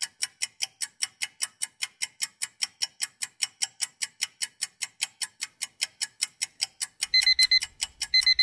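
Countdown timer sound effect: a clock ticking about four times a second. About seven seconds in, as the timer reaches zero, an alarm-clock beeping starts in short rapid bursts about once a second over the ticking, signalling that time is up.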